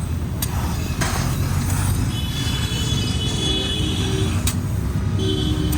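Hero Splendor motorcycle engine running through a fitted Yamaha RX 100 silencer, a steady low exhaust note.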